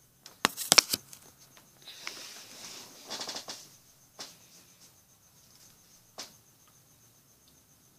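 A person snoring: one breathy inhale that turns into a rattling, fluttering snore about three seconds in. It is preceded by a burst of loud clicks and knocks in the first second, with two more single clicks later.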